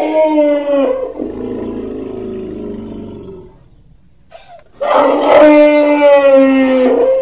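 Elephant-style trumpeting call, heard twice. The first call lasts about a second with a steady, slightly falling pitch, then trails into a lower, rougher tail. After a short gap, a second, louder call starts about five seconds in and holds for about two and a half seconds. It is offered as the voice of the extinct North African elephant, so it is a stand-in sound rather than a recording of that animal.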